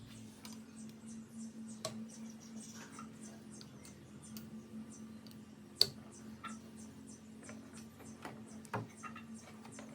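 Small clicks and taps of fuel injectors being handled and pushed into a fuel rail, with one sharper click about six seconds in and another near the end. A faint steady hum runs underneath.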